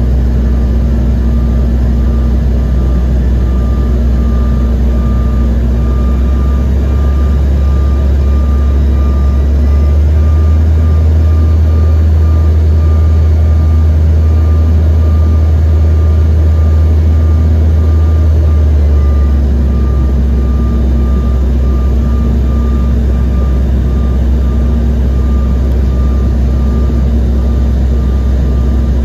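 Cabin noise inside a CRJ-550 regional jet in flight: a loud, steady drone of airflow and the jet's two rear-mounted GE CF34 turbofans, with a faint steady whine on top. The low drone changes tone for about ten seconds midway, then settles back.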